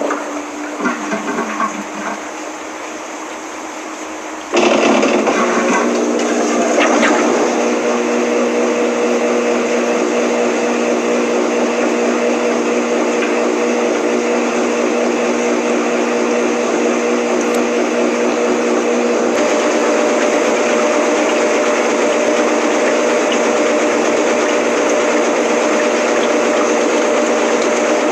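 Washing machine motor starting up suddenly about four and a half seconds in and running with a steady hum and whine, after a quieter stretch of water sounds; the whine steps up in pitch about two-thirds of the way through.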